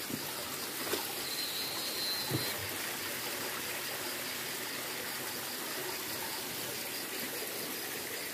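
Steady trickle of water running over rock, with a faint high pulsing insect call behind it and a couple of soft knocks in the first few seconds.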